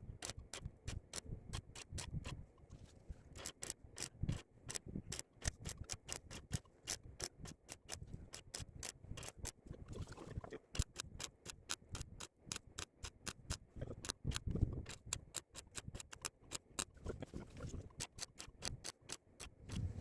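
MIG welder crackling in clustered runs of sharp clicks with short gaps, as steel patch panels are spot-welded onto a vehicle sill.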